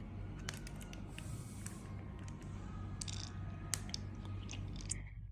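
Faint scattered clicks and small handling noises over a low steady hum.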